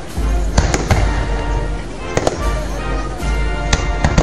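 Aerial fireworks bursting, a rapid series of sharp bangs and crackles, with music playing underneath.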